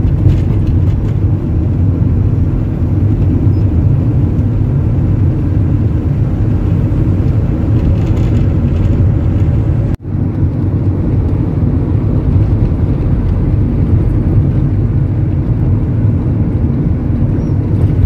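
Car running along a paved road, heard from inside the cabin: a steady low rumble of engine and tyre noise. It breaks off for an instant about halfway through.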